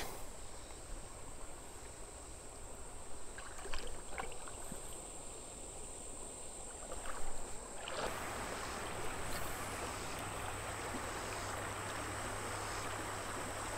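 Shallow creek water running over rocks, with a few small splashes and knocks. About eight seconds in it changes abruptly to a steadier, louder rushing noise.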